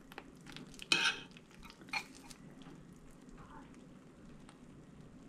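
Metal spoon scraping and clinking against a stoneware baking dish while scooping out baked pasta, with a few sharp knocks in the first couple of seconds, the loudest about a second in.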